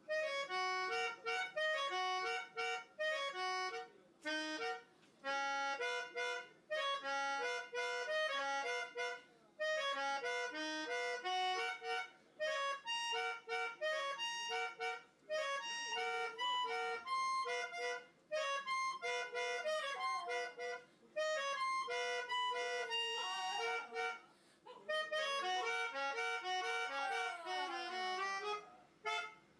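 A tune played on a free-reed instrument such as a harmonica, note by note in short phrases with brief breaks. Near the end a few falling, gliding tones sound under the melody.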